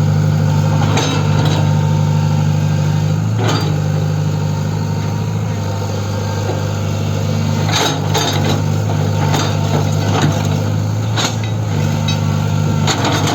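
Tata Hitachi Zaxis 120 excavator's diesel engine running steadily, with a sharp clank every second or few as the track chain is fitted.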